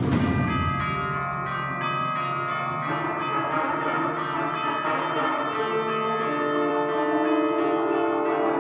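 Concert band playing softly: held notes in the winds with chimes struck over them, several separate bell strokes, just after a loud timpani passage dies away at the start.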